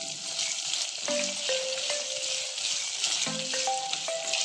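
Shallots and garlic sizzling steadily in hot gingelly (sesame) oil in a clay pot as they are stirred.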